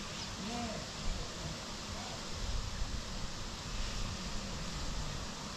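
Steady hiss of outdoor bush ambience, with faint distant voices briefly about half a second and two seconds in.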